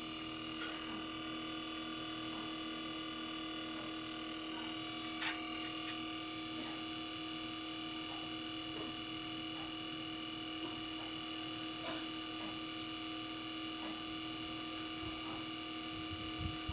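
LG split inverter air conditioner's outdoor unit running, its inverter compressor and fan motor giving a steady hum with several high, constant whining tones and a light tick about five seconds in. The compressor is working again after its defective IPM (inverter power module) was replaced.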